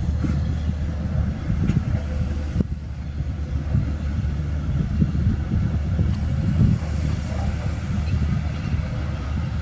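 Dump truck's engine running as it drives along a dirt quarry track: a steady low rumble.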